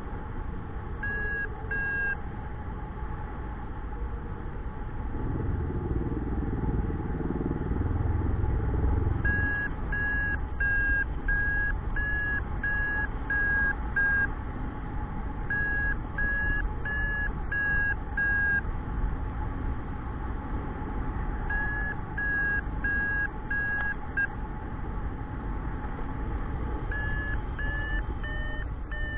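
Paragliding variometer beeping in several runs of short, evenly spaced beeps, the climb tone that signals the glider is rising in lift; the beeps sit a little higher in pitch near the end, a stronger climb. Wind rushes over the microphone, gustier about five to nine seconds in.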